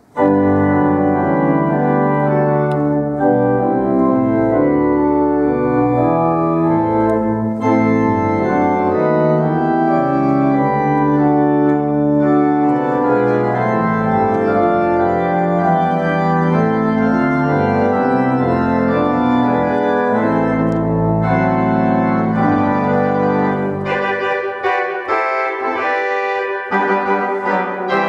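Viscount Physis digital organ played on a classical registration: full sustained chords over deep bass notes, moving steadily from chord to chord. About 24 seconds in the bass drops away and the upper voices carry on alone.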